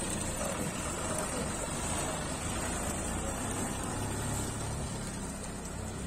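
Diesel engine of a Dasmesh 912 combine harvester running steadily with a low, even rumble.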